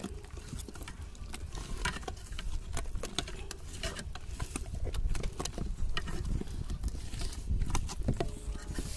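A hand squeezing and folding thick gram-flour (besan) batter in an aluminium bowl: irregular wet slaps and squelches, with the fingers now and then scraping the metal.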